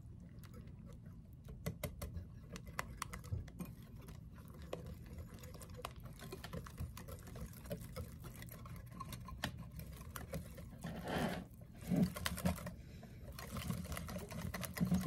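Wire whisk beating batter in a glass bowl: a fast, steady run of clicks as the wires strike the glass. A couple of louder bumps come about eleven and twelve seconds in.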